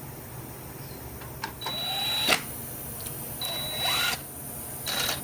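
Cordless power driver run in three short bursts, each a high whine with the motor spinning up, with a sharp click at the end of the first, running bolts down snug before they are torqued.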